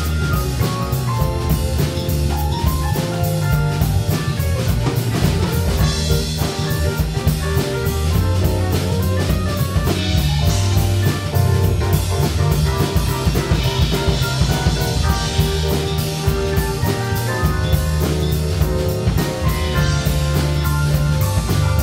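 A live instrumental band playing: electric bass, keyboards and a drum kit keeping a steady beat.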